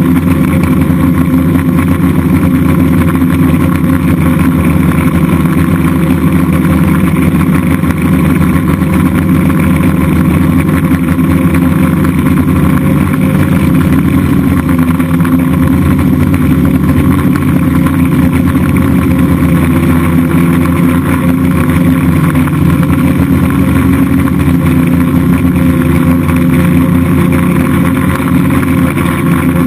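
F550 hexacopter's six electric motors and propellers buzzing steadily in flight, heard close up from on board, with small shifts in pitch as the throttle changes.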